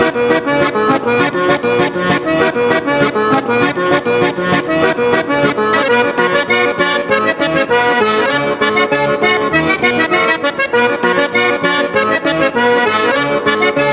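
Lively background music with a fast, steady beat.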